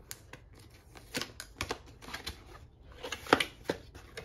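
Cardboard box being opened by hand: packing tape picked and peeled off, then the flaps pulled open, making a string of sharp cardboard clicks and scrapes. The loudest snap comes a little after three seconds in.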